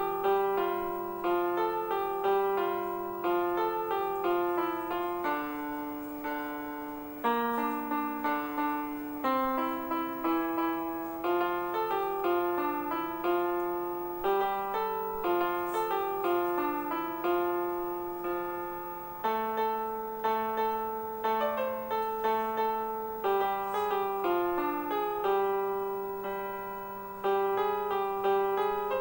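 Background piano music: a gentle melody of single notes over lower held notes, each note struck and fading.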